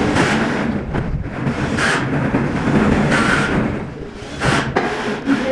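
Handling noise as plastic insulation pieces are pushed into a power module's relay board: three short scraping rustles over a steady low background noise.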